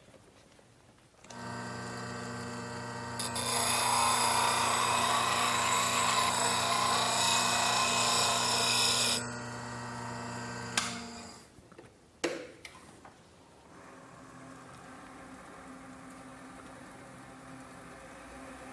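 A bench grinder with CBN wheels starts up and runs with a steady hum, then a roughing gouge is held to the wheel for about six seconds, giving a loud, harsh grinding sound. The grinder winds down, with a click and a knock, and a JET 1221VS lathe then starts and runs at low speed with a quiet steady hum.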